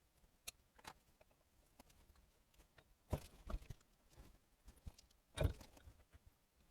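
Light, scattered knocks and clicks of hand tools and small metal engine parts being handled during engine dismantling, the loudest about three seconds in and again about five and a half seconds in.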